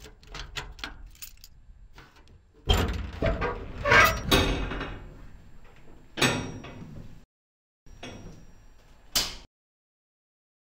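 Keys jangling and clicking at the padlock of a steel shipping-container door, then the door unlatched and swung open with a loud grating of metal about three seconds in. Two sharper metal knocks follow later.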